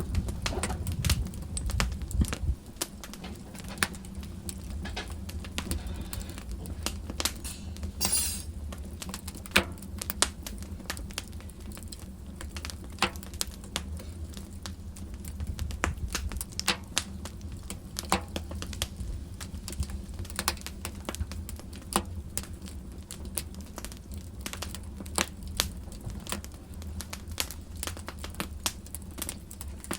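Fireplace fire crackling: irregular sharp pops and snaps over a low steady rumble, with a brief hiss about eight seconds in.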